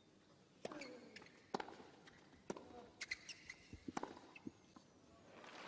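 Tennis rally: a serve and then racket strikes and ball bounces, sharp pops about a second apart, five or so in all, heard faintly.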